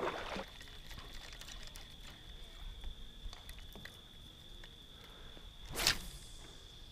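Quiet open-water ambience under a steady, high, thin insect trill, like tree crickets calling. One short sharp sound stands out about six seconds in.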